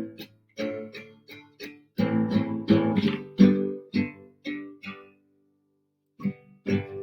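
Acoustic guitar strumming chords in a steady rhythm. It stops for about a second around five seconds in, then starts again.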